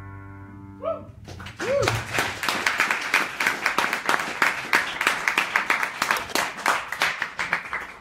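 A piano's final chord fades away, and about a second in a small audience starts clapping and keeps applauding, with a voice briefly calling out as the applause begins.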